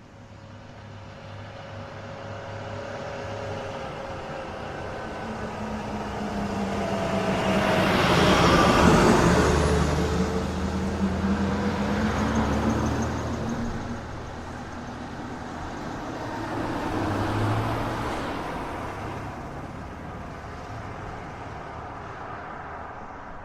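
Cars driving past on an asphalt road: tyre and engine noise swells to a loud pass-by about nine seconds in, its engine note sliding down as it goes, and a second, quieter vehicle passes near the end.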